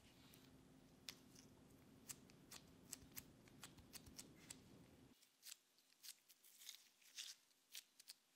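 Faint, scattered clicks and soft taps of gloved hands handling and pressing chocolate cookie dough balls flat on a silicone baking mat. A low steady hum runs underneath and cuts off suddenly about five seconds in.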